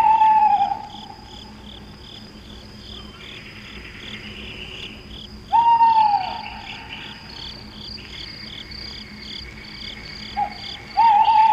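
Young Eurasian eagle-owl calling: three loud, drawn-out calls that each fall in pitch, about five seconds apart, with a short one just before the last. Crickets chirp in a steady pulsing rhythm throughout.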